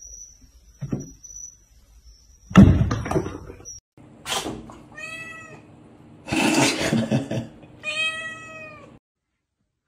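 Siamese cat meowing: two clear, drawn-out meows that rise and fall in pitch, about five and eight seconds in, between rougher noisy sounds. Earlier, a loud burst of noise over a faint high whine.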